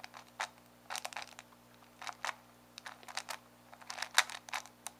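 Plastic Megaminx puzzle being turned quickly by hand: quick runs of clicking and clacking as its faces are twisted through an algorithm. The loudest click comes about four seconds in.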